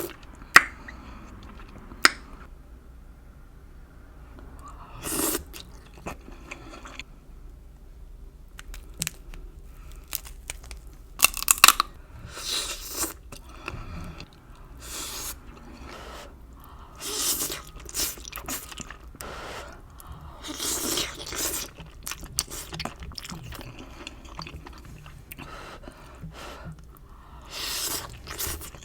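A person chewing and crunching food close to the microphone, in irregular bites a second or two apart, with a few sharp clicks in the first couple of seconds.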